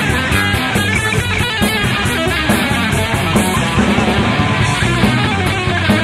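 Live rock band playing an instrumental passage: electric guitar over bass guitar and a drum kit, with a steady cymbal beat.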